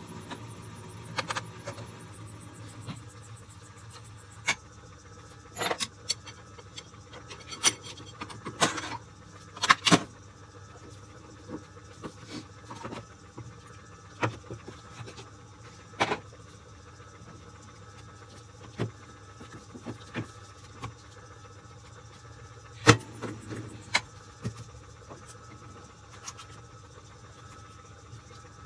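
Irregular sharp metallic clicks and knocks from steel kingpin and stub-axle parts being handled and worked by hand, over a steady low machine hum.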